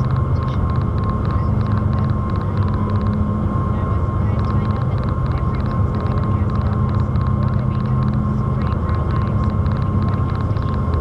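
Ferry's engines running with a steady low drone heard inside the passenger cabin, with a thin steady whine above it.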